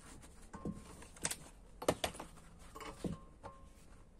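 A handful of short, irregular metallic clicks and knocks from tools being handled: a cordless driver set down on concrete and a spring compressor shifted on a MacPherson strut's coil spring.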